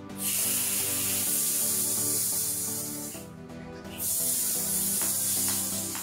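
Handheld high-pressure shower head with a filter, its spray face removed, shooting a hard jet of water against a tiled wall in two bursts: a loud hiss of about three seconds, a short break, then about two more seconds.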